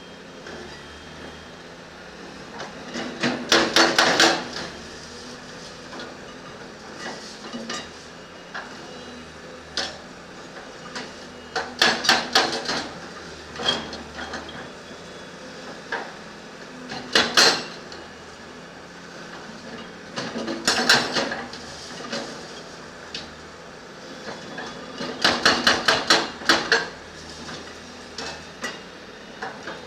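Bursts of rapid metal-on-metal hammering, each lasting a second or two at several blows a second, about five times, with a steady mechanical background between them.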